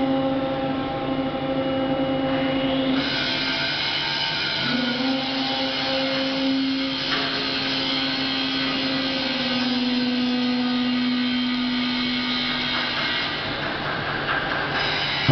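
Hydraulic system of a refuse truck's streetside lift carriage running as the carriage is cycled: a steady whine whose pitch steps lower a few times as the controls are worked, with a hiss joining about three seconds in.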